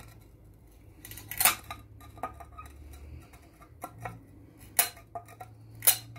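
Parrot's beak snips (tile nippers) prying small pieces off a ceramic tile to open out a hole: sharp cracks and clinks of the glazed tile breaking away, a few times, the loudest about a second and a half in, near five seconds and near six seconds, with fainter clicks between.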